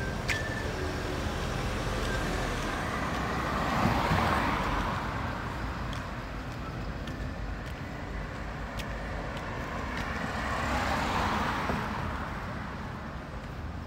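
Street traffic: a low steady rumble, with two cars passing on the road, their tyre and engine noise swelling and fading about four seconds in and again after about ten seconds.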